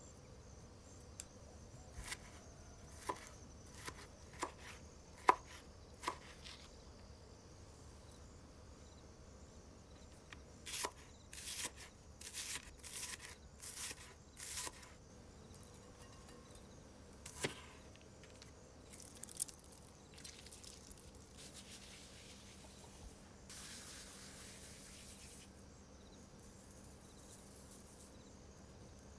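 Kitchen knife cutting tomato and red onion on a cutting board: single sharp strikes about a second apart, then a quicker run of chops through the onion.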